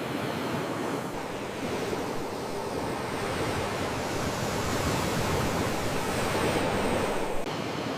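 Sea waves washing in as a steady rush of surf, swelling for a few seconds and then dropping off sharply near the end.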